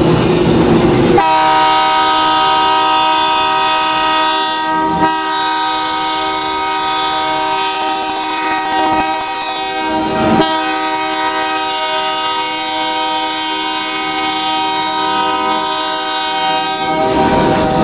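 EMD GP9 diesel locomotive's air horn held in one long, steady chord, starting about a second in and lasting about sixteen seconds, over the rumble of the passing train. Two brief knocks come through, around five and ten seconds in.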